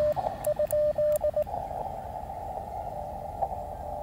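Morse code from a portable ham radio transceiver: a single steady-pitched tone keyed in dots and dashes for about the first second and a half. After that comes the receiver's hiss of band noise.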